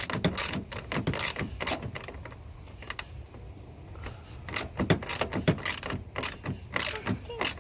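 Hand ratchet clicking in quick runs as bolts are tightened, with a quieter pause in the middle.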